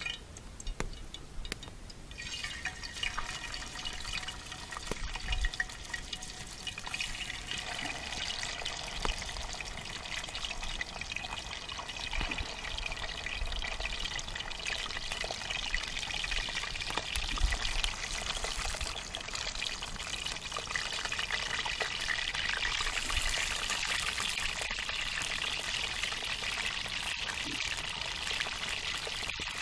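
Fish frying in hot oil in a skillet: a steady crackling sizzle that starts suddenly about two seconds in and grows somewhat louder in the last third.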